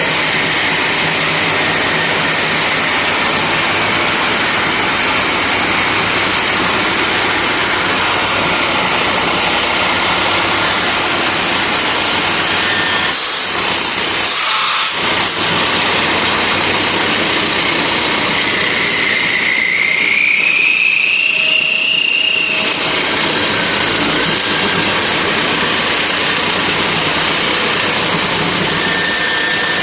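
Turret lathe running with a loud, steady mechanical noise. About two-thirds of the way through, a high squeal rises in pitch for about three seconds and then stops.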